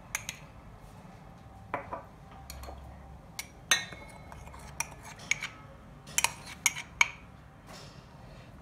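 A metal spoon clinking and scraping against a ceramic cup and a stainless steel bowl as flour is spooned out, in scattered sharp taps and clicks.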